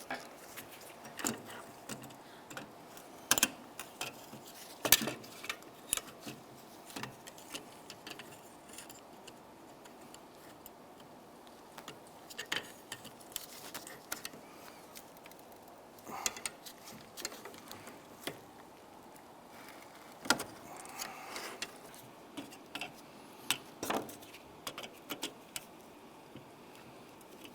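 Door latch parts being handled and worked apart: scattered sharp clicks and light metallic clinks, with a few louder snaps.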